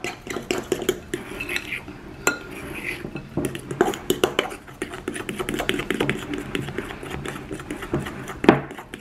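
Metal fork stirring thick cake batter in a glass mixing bowl, clinking and scraping against the glass as it scrapes the bottom and sides. Irregular taps throughout, with one sharper clink near the end.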